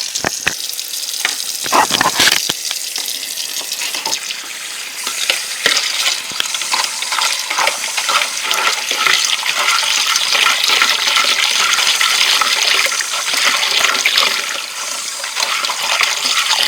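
Kitchen tap running hot water steadily into a container, with a few clatters in the first couple of seconds.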